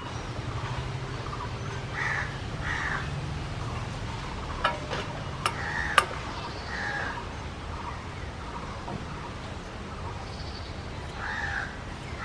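Crows cawing repeatedly, with three sharp clicks near the middle as chunks of squash are cut on a fixed upright blade.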